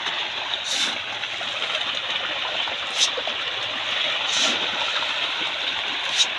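A dense crowd of pangasius (striped catfish) thrashing at the surface of a pond. The water churns and splashes steadily, with a few sharper splashes standing out.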